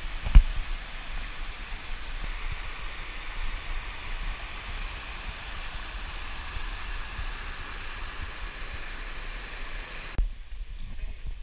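Stream water rushing over rocks and small cascades, a steady rush. A single sharp knock comes about half a second in, and the rush drops away abruptly about ten seconds in.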